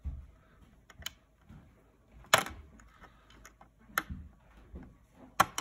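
A few separate sharp plastic clicks and taps as a push tool works a wire-harness connector loose from an oven control board, the loudest about two and a half seconds in.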